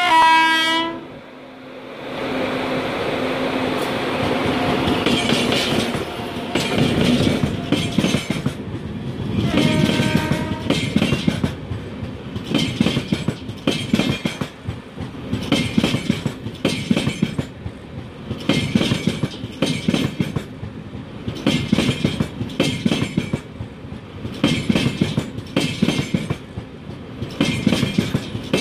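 Horn of a WAP-7 electric locomotive: one short blast at the start and another about ten seconds in. Then a train of LHB passenger coaches rolls past close by, its wheels clacking in repeating paired beats as each bogie goes by.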